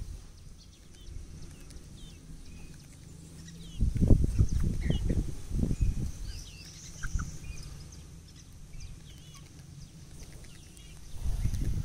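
Small birds chirping in the background, many short high chirps scattered throughout, with bursts of low rumbling noise about four to six seconds in and again near the end.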